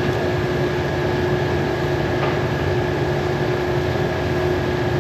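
Steady mechanical hum of a running machine, even in level, with a few constant tones over a low rumble.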